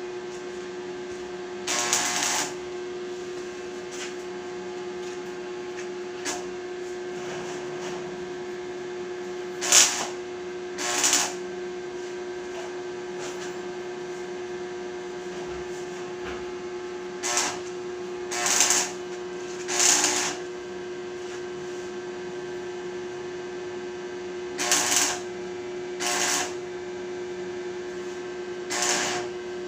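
Arc welding machine humming steadily from its transformer, with nine brief noisy spurts of about half a second scattered through.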